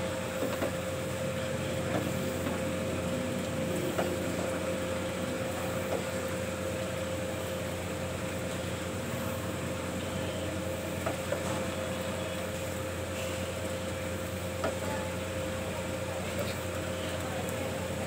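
A steady machine hum with a constant whine runs throughout, with a few light clicks and scrapes of a wooden spoon lifting cooked macaroni from a non-stick wok into a glass dish.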